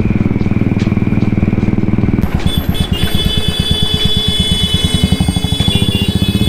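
Motorcycle engine under way, heard from the rider's seat: a smooth, steady run at first, then about two seconds in a slower, evenly pulsing beat at low revs. A steady high-pitched tone joins it.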